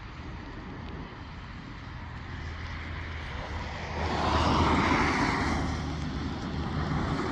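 A road vehicle going past: a low engine rumble throughout, with a rush of noise that swells about four seconds in and then fades.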